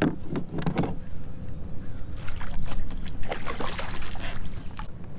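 Water sloshing and splashing around a kayak with scattered knocks and clicks, as a hooked spotted bay bass is brought up to the surface beside it.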